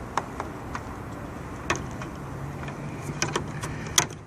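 Scattered clicks and taps of a plastic license plate light housing being handled and opened to reach the bulb, the sharpest click about four seconds in. A low steady hum comes in a little after halfway.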